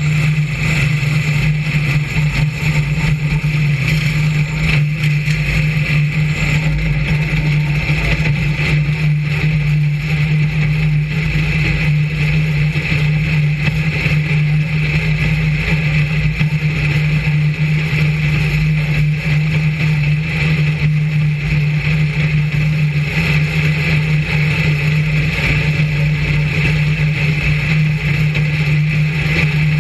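Brisca F1 stock car's V8 engine running, heard loud and close from a camera mounted on the car's bodywork, as a steady drone that hardly changes pitch.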